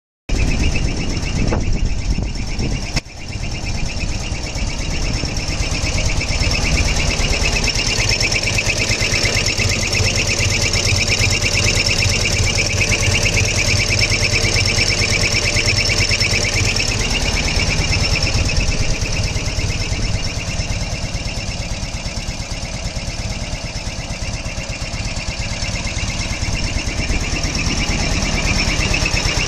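Ural motorcycle's flat-twin engine running steadily, with a high-pitched whistle over the engine beat, which the owner places in the right cylinder.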